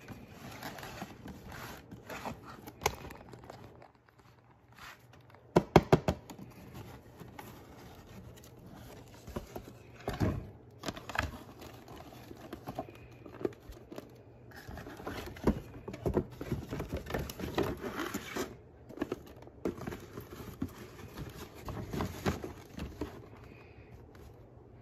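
A cardboard toy box handled and opened, and a plastic toy pie lifted out and set down: rustling, scraping and irregular knocks, the loudest a quick cluster of knocks about six seconds in.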